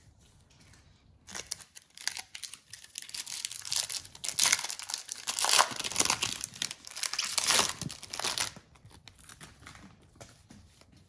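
Wrapper of a 2020 Topps Series 1 baseball card pack being torn open and crinkled: a dense crackle starting about a second in, loudest in the middle, and dying away near the end.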